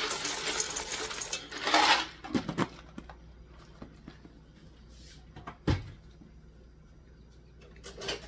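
Dry pasta rattling as it is poured from a plastic container into a stainless steel pot, for about two seconds. It is followed by a few light clicks and one sharp thump a little past the middle.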